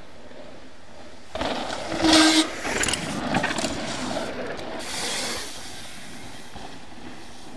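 Mountain bike tyres rushing and skidding through loose dirt as riders pass close and carve a berm, spraying dirt. The noise starts about a second and a half in, is loudest about two seconds in, and fades over the next few seconds.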